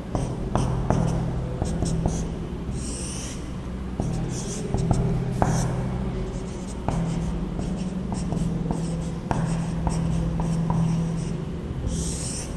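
Marker pen writing on a whiteboard: short squeaky strokes and taps of the nib as an equation is written out, over a steady low hum.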